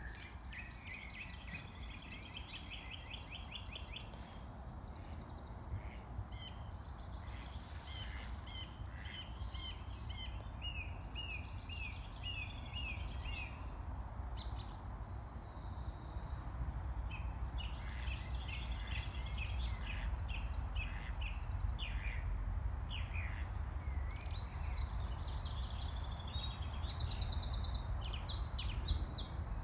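Small songbirds singing in phrases of rapid repeated notes, with higher, louder phrases near the end, over a steady low outdoor rumble.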